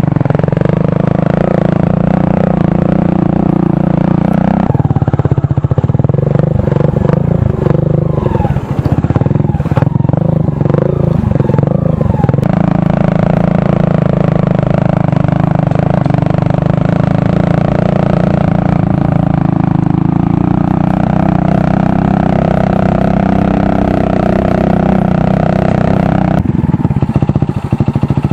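Motorcycle engine running steadily as the bike rides a bumpy dirt trail. A rougher, rattling stretch comes about five seconds in and lasts several seconds, then the engine settles back to an even note. It eases off near the end as the bike comes to a stop.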